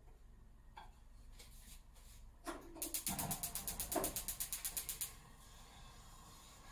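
A rapid run of sharp, even clicks, about ten a second, lasting about two seconds, with a couple of short knocks during it.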